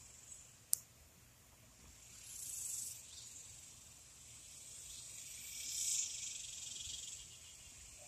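Evening insect chorus: a steady high shrill that swells louder twice, around two and six seconds in. A single sharp click comes just under a second in.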